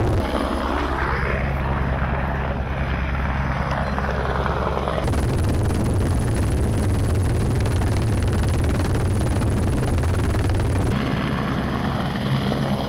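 Helicopter flying, its rotor beating steadily with a low engine drone; the sound shifts abruptly twice, about five and eleven seconds in.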